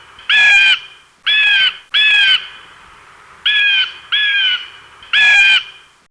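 Blue jay calling: six short calls of about half a second each, slightly arching in pitch, several in quick pairs.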